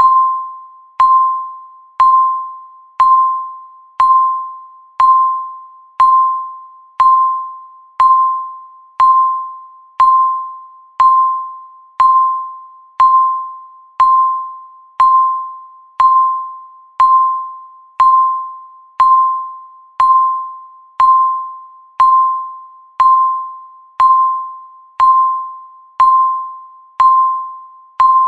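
Countdown timer's tick sound: a short electronic beep near 1 kHz, struck once a second and fading quickly after each strike.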